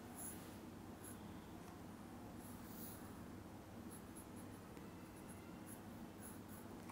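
Graphite pencil scratching on sketchbook paper in short, faint drawing strokes, coming in small clusters over a low steady hum.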